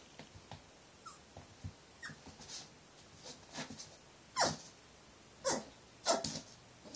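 Cavalier King Charles spaniel puppy giving short, high barks at its own reflection, a few faint ones at first and three louder ones in the second half.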